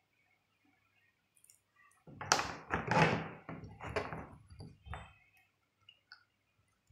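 Dull knocks and thuds, about five in quick succession starting some two seconds in, from a plastic three-pin plug body and a screwdriver being handled and pressed against a tabletop. A couple of faint clicks follow.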